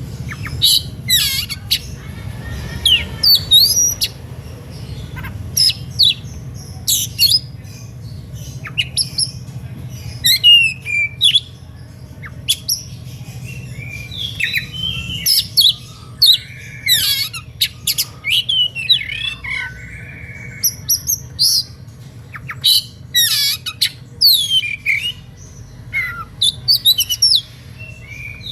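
Oriental magpie-robin (kacer) singing an excited, aggressive song: a fast run of sharp whistles and rising and falling notes mixed with harsh raspy calls, the kind of song that provokes other magpie-robins to answer. A steady low hum lies underneath.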